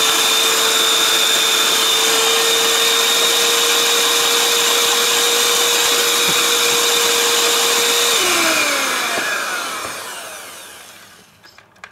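Electric hand mixer with dough hooks running steadily with a high motor whine as it beats a yeast batter in a stainless steel bowl. About eight seconds in it is switched off, and the whine falls in pitch as the motor winds down to a stop.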